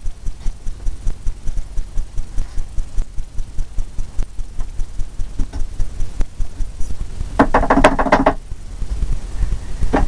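An oil-painting brush being beaten to knock it dry after cleaning: steady rhythmic thumps, about four a second.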